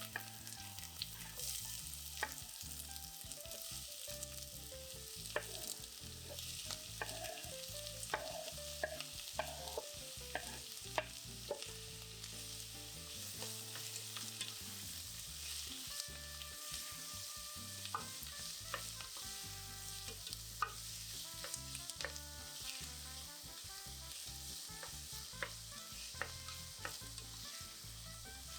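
Food frying in oil in a pan with a steady sizzle, stirred with a utensil that knocks and scrapes against the pan many times.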